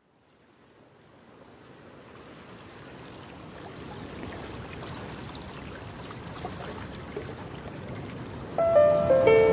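Steady rushing of flowing water, fading in slowly from silence. Near the end, music with held piano-like notes begins and becomes the loudest sound.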